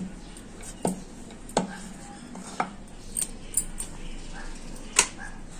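Rolling pin knocking and clicking against a wooden rolling board as papad dough is rolled out thin and handled: about six short, sharp knocks at uneven intervals, the loudest near the end.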